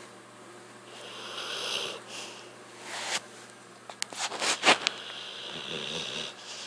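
American bulldog breathing noisily in its sleep: long hissing breaths, a run of sharp snuffling clicks about four seconds in, then a rattling snore breath.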